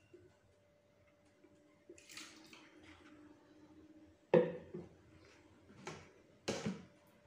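Plastic ring pudding mould being handled on a table: a soft rustle, then a sharp knock about four seconds in and two smaller knocks near the end.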